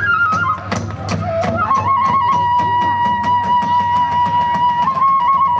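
Kagura ensemble music: a bamboo flute holding long notes that step between pitches, over drums and small hand cymbals striking a fast, even beat of about five strokes a second.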